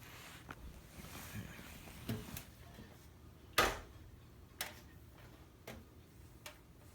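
Scattered light clicks and knocks from handling, seven or so at irregular spacing, with one louder knock about three and a half seconds in, over a faint low hum.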